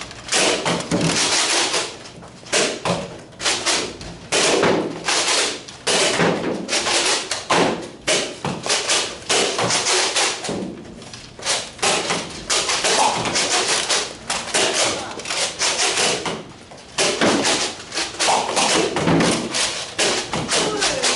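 Nerf Rival blasters firing foam balls during a team shoot-out, with many thuds and taps in quick succession as the balls strike walls, floor and players, mixed with players' voices.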